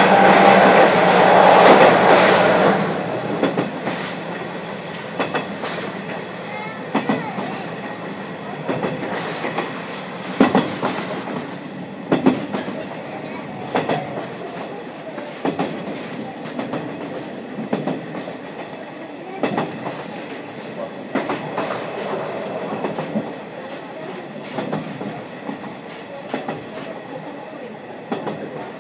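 Passenger coach of a locomotive-hauled train running along the track, heard from inside with a window slightly open: a steady rumble with wheels clicking over rail joints every one to two seconds. The first three seconds are louder, with a steady tone over the running noise.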